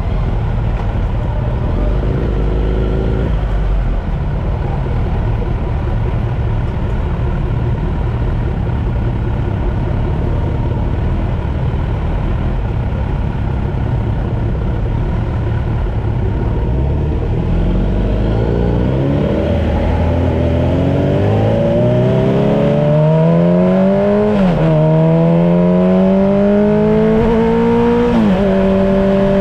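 Kawasaki Z900 inline-four engine idling at a standstill, then pulling away about two-thirds of the way in: the revs climb, drop sharply at two upshifts, and settle into a steady cruise.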